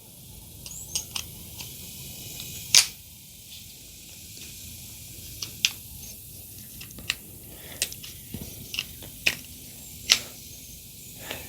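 Scattered sharp clicks and light taps from a screwdriver and its bit being handled, about a dozen over the stretch, the loudest about three seconds in and another near the end.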